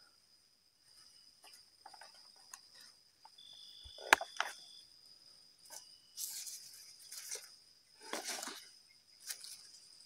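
A steady high-pitched insect drone, with leaves and fern fronds rustling in short spells as a hand moves them, and one sharp click about four seconds in.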